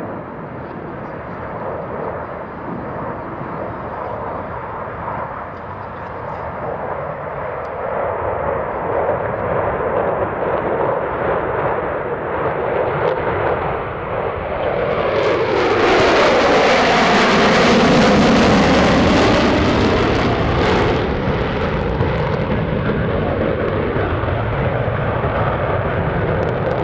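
Four USAF Thunderbirds F-16 Fighting Falcons in diamond formation flying over. Their jet noise builds to its loudest pass about 15 to 21 seconds in, with a pitch that sweeps down as they go by, then eases off.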